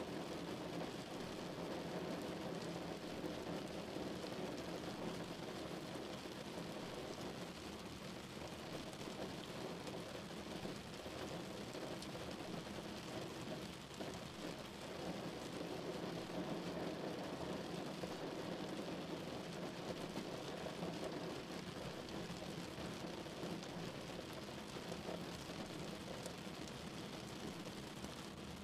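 Rain falling on a car's windshield and body, heard from inside the moving car. It runs as a steady hiss over the car's road and engine noise.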